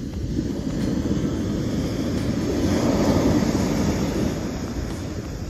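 Ocean surf: a wave rushes in, its wash swelling to a peak about three seconds in and then fading.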